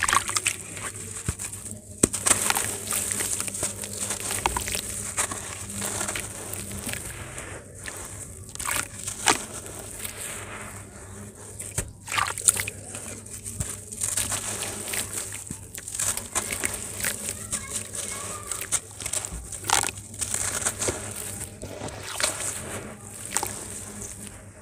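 Hands crumbling and squeezing clumps of grainy sand under water in a basin: a continuous gritty crunching and sloshing, broken by many irregular sharp crackles as the chunks break apart.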